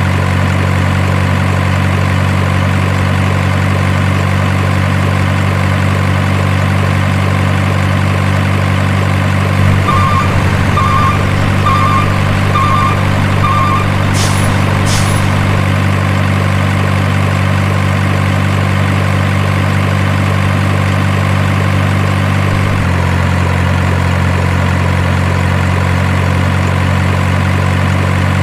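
Heavy truck engine idling steadily, with five short evenly spaced beeps about ten seconds in, then two quick hisses; the idle note shifts slightly about two-thirds of the way through.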